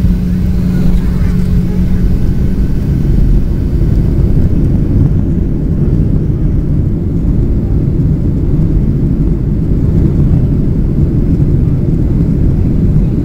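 Cabin noise of a Boeing 737-700 rolling out on the runway after touchdown: a steady low rumble from the wheels and CFM56 engines. A steady engine tone fades out about three seconds in, and the hiss eases as the jet slows.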